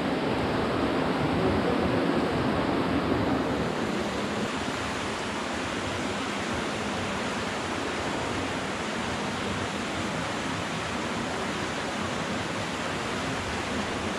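Water rushing steadily inside a cave, a little louder for the first few seconds and then even.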